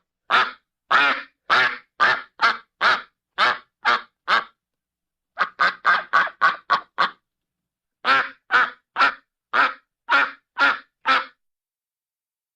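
A duck quacking in three runs of loud, rasping quacks, each run of about seven to nine calls. The middle run comes faster than the others, and there are short silent pauses between the runs.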